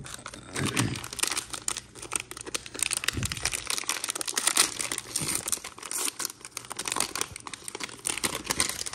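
A foil trading-card pack wrapper crinkling as it is torn open and handled, a dense run of crackles that dies away at the end.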